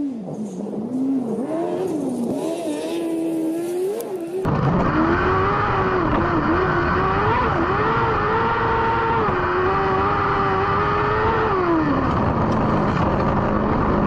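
Semog Bravo sprint buggy's engine revving up and down as it drives toward the camera on a gravel track. From about four seconds in, heard from on board, the engine is louder and closer, rising and falling with the throttle. Near the end its pitch falls and settles to a low steady note as the car slows.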